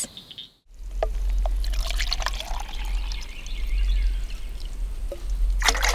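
Water being poured and splashing into a container, trickling and dripping, over a steady low rumble.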